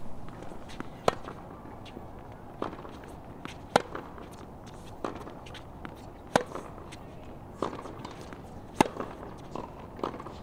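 Tennis rally from the baselines: racquets strike the ball back and forth, a sharp pop about every one and a quarter seconds. The loud pops come from the near player's racquet about every two and a half seconds, with fainter pops from the far end in between.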